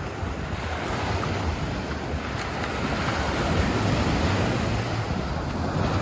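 Small ocean waves breaking and washing up a sandy beach, the surf swelling louder toward the middle. Wind buffets the microphone with a low rumble underneath.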